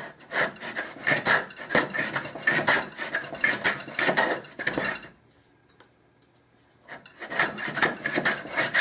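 Handmade wooden rabbet plane cutting along the edge of a board in quick repeated strokes, each a short scraping rasp as the blade takes a shaving. The strokes stop for about two seconds in the middle and then start again.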